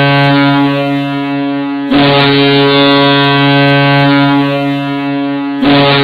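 Providence Bruins' hockey goal horn sounding in long, deep blasts of nearly four seconds each. A new blast starts about two seconds in and another near the end.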